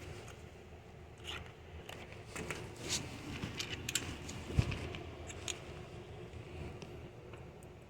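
Sparse small metallic clicks and scrapes of lock-picking tools working in a doorknob lock, with one dull knock about four and a half seconds in.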